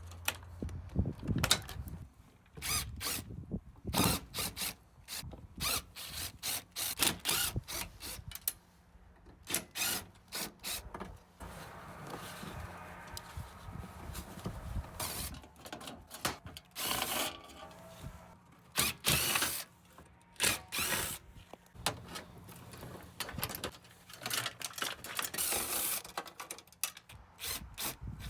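Tools and parts knocking and clattering against a dishwasher's sheet-metal and plastic body as it is taken apart for scrap. Many sharp, irregular knocks are broken by a few longer, noisier stretches.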